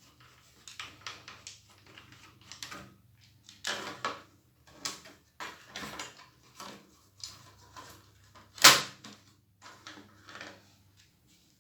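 Irregular clicks, taps and knocks of small plastic and metal laptop parts being handled and screwed back together during reassembly of an Asus X541C laptop, with one sharp, loud click near the end.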